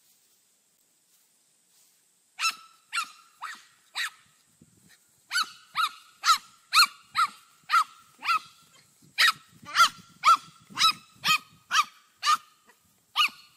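An animal calling in a run of about twenty short, sharp, high-pitched calls, starting about two seconds in and coming roughly two a second in uneven clusters.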